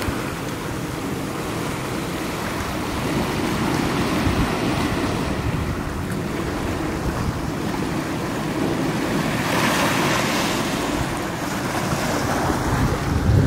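Sea waves washing in over a rocky shore, with wind buffeting the microphone. A wave breaks with a louder hiss about ten seconds in.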